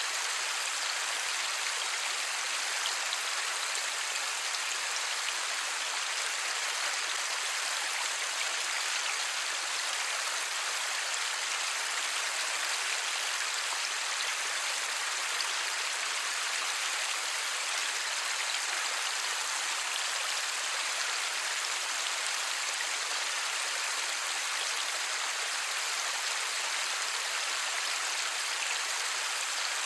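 Steady light rain falling, an even hiss of countless drops with no thunder.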